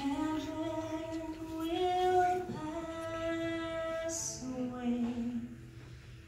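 A woman singing a slow song solo into a microphone, holding long notes that step from one pitch to the next, with a sharp 's' sound about four seconds in.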